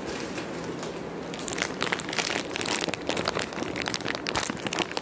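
A dog's dental chew treat packet crinkling as it is handled. The dense crackly rustling starts about a second and a half in and keeps going.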